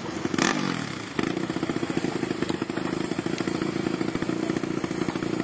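Racing ATV (quad) engines running steadily with a rapid, rough pulse. About half a second in, one engine gets louder and its note falls over about a second, as a quad goes by.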